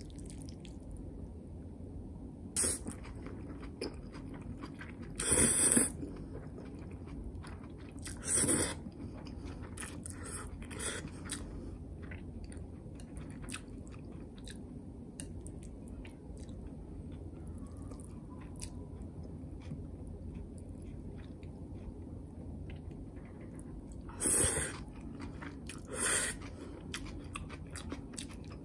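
Someone eating spicy zucchini noodles: chewing with many small clicks, and five louder half-second sounds, the loudest about five seconds in.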